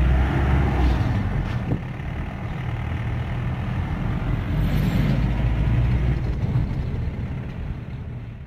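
Steady rumble of engine and road noise heard from inside a moving vehicle at highway speed, easing off near the end.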